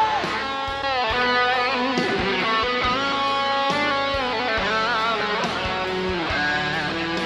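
Instrumental break in a Filipino pop love song, with no singing: an electric guitar plays a lead melody with sliding, bent notes over strummed guitar and a steady drum beat.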